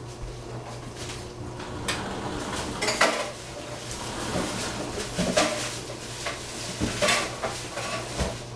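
Dishes, pots and metal utensils clattering and knocking in several separate bursts, loudest about three seconds in and again about seven seconds in, over a steady low hum.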